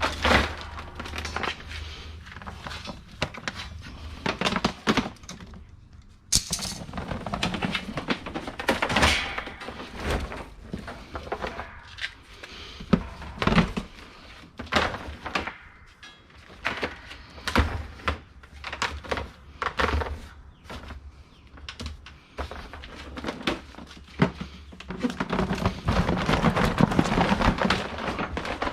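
Scrap items being handled and tossed into bins: irregular knocks, thunks and clatter, with a busier stretch of rummaging near the end.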